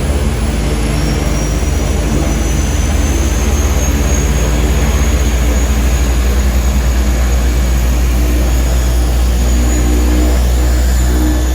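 Seaplane engines and propellers running steadily in flight: a loud, deep, even drone with a faint high whine above it.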